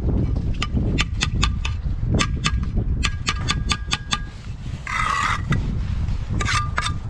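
A steel brick trowel tapping bricks down into fresh mortar: sharp taps with a short metallic ring, in quick runs of several a second. About five seconds in, the trowel scrapes briefly across the mortar.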